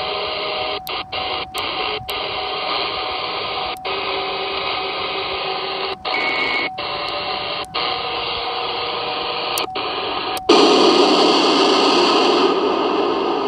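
CB radio receiver on 27.255 MHz hissing with static in sideband mode, with faint steady tones from weak signals in the noise and about ten brief dropouts as its controls are worked. About ten and a half seconds in it switches to FM and the hiss suddenly becomes louder and brighter, the open-squelch rush of FM receiver noise.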